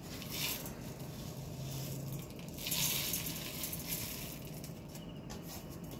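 Dry-roasted whole spices, coriander seeds and dried red chillies, rustling and pattering as they slide off a pan into a steel grinder jar, in two pours: a short one at the start and a louder one about two and a half seconds in.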